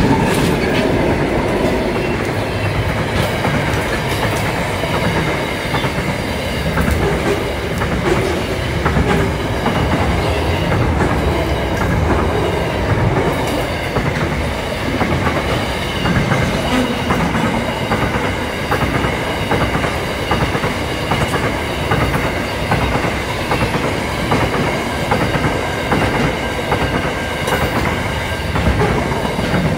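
Diesel-hauled freight train passing close by: the lead locomotives go by at the start, then container wagons roll past with a steady rumble of wheels and a clickety-clack over the rail joints.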